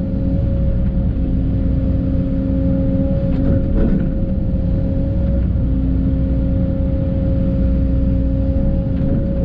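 Case CX210 excavator's diesel engine and hydraulics running steadily under digging load, with a constant whine over the engine drone and a few short knocks about three to four seconds in.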